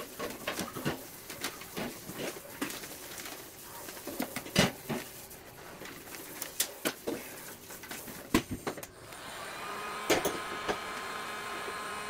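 Clicks and rustles of polyethylene water tubing being uncoiled and handled. About nine seconds in, an electric heat gun switches on and runs steadily, its fan blowing with a faint whine.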